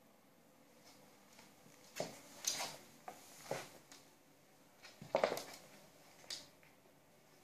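Two cats play-fighting on a wooden floor: irregular bursts of scuffling, bumps and claws scrabbling on the boards, loudest about two seconds in and again about five seconds in.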